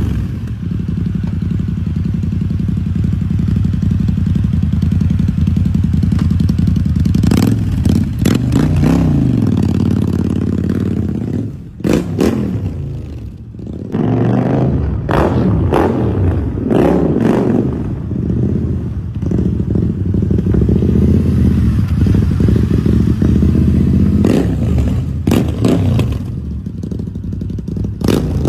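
Custom Harley-Davidson V-Rod's liquid-cooled V-twin running loud, revved up and down several times, with a number of sharp cracks between the revs.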